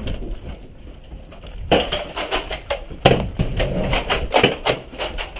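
A quick, irregular string of sharp clicks and knocks, starting a little under two seconds in and running for about three seconds.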